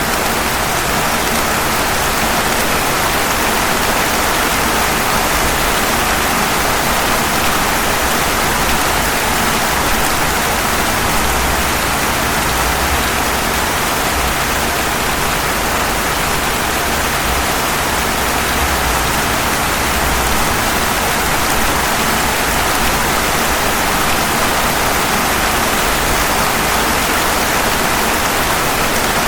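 Steady rain falling on pavement, an even hiss with no single drops or other events standing out.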